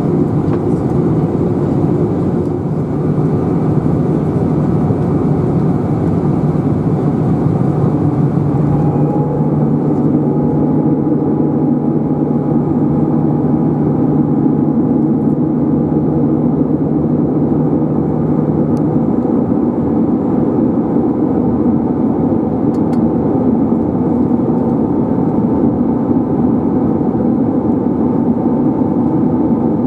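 Airbus A320 cabin noise during descent: a steady drone of the jet engines and airflow heard from a seat over the wing. The tone shifts about nine seconds in, with less hiss and a new mid-pitched hum, and a low hum drops out about two-thirds of the way through.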